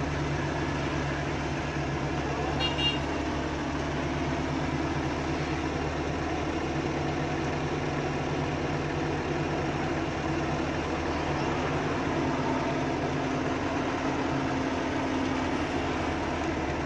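Crane truck's diesel engine running steadily under load, with a short high horn toot about three seconds in.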